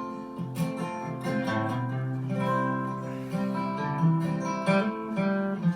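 Acoustic guitar strummed and picked in a folk rhythm, an instrumental passage between sung verses.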